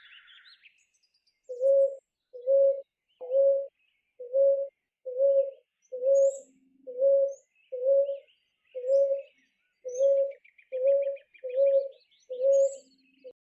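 A bird calling a long series of evenly spaced, low, hooting notes, about one every 0.7 seconds, after a short pause at the start. Small birds chirp and trill faintly in the background.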